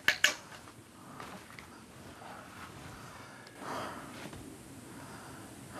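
A worn-out man breathing heavily in slow, audible breaths and sighs, about one every second or so. Two sharp clicks come right at the start.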